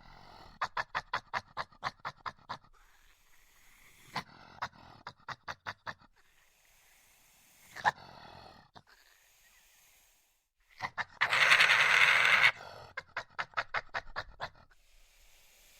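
Badger calling in several bouts of rapid pulsed chattering, about six pulses a second, with a sharp short cry partway through and a loud hiss lasting about a second and a half.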